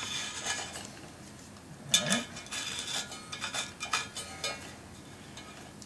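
Utility blade scraping dried old foam and glue off the painted metal frame of an Infinity RSa 10-inch woofer. The blade makes a series of irregular, scratchy strokes, the sharpest about two seconds in.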